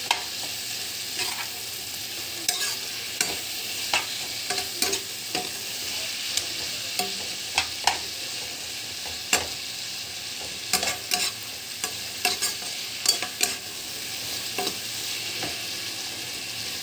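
Sliced onions, capsicum and green chillies sizzling in oil in a kadai, a steady hiss, while a metal spatula stirs them, scraping and tapping against the pan in irregular clicks.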